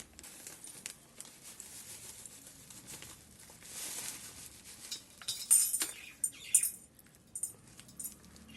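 Menthol crystals tipped into a small glass bottle: faint rustling at first, then a run of sharp little clinks against the glass in the second half.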